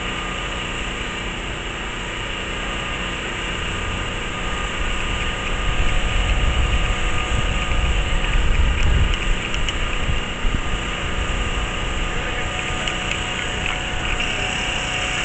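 Street traffic at an intersection: vehicle engines idling and running, a steady hum, with a louder low rumble for a few seconds in the middle.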